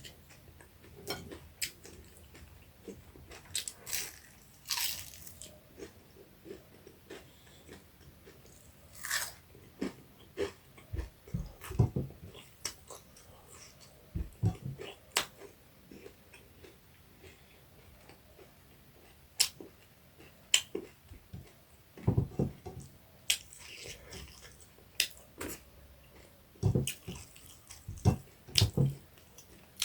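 Close-miked eating: a person chewing and crunching crispy fried small fish with rice, in irregular bites with wet mouth clicks and short crunches, loudest around 12 s, 15 s, 20 s and 22–29 s.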